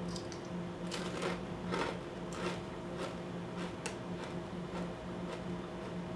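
A kettle-cooked potato chip being bitten and chewed, in short crisp crunches at an irregular pace of about two a second, over a steady low hum.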